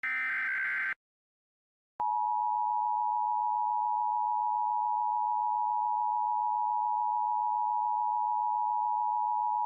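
Emergency Alert System broadcast signal: a one-second burst of buzzy digital data tones (the end of the SAME header), then, after a second's gap, the steady EAS attention tone starting about two seconds in.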